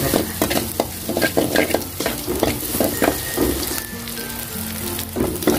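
Sliced garlic and shallots sizzling in a little oil in an aluminium wok under a steady hiss. A metal spoon scrapes and taps against the wok several times a second as they are stir-fried until fragrant and changing colour.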